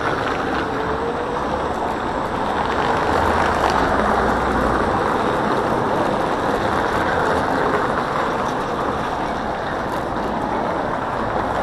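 Steady riding noise from an electric scooter rolling over paving stones, a continuous rumble of tyres and wind picked up by an action camera mounted on the scooter.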